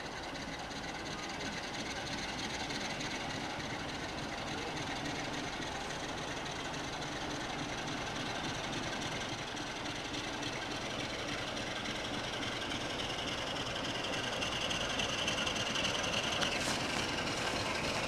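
Diesel-hauled freight train approaching slowly, growing steadily louder as it nears. A higher-pitched noise comes up over the last few seconds.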